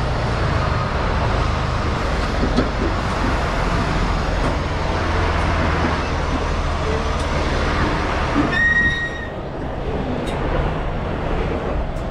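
Semi-truck diesel engine running, heard from inside the cab as the tractor rolls slowly, a steady low drone. A single short high beep sounds about eight and a half seconds in.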